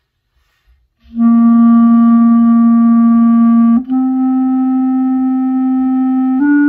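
B-flat clarinet playing a slurred long-tone exercise. After about a second of quiet, a held written C begins, slurs up to D about halfway through, and up to E near the end, each note held steady.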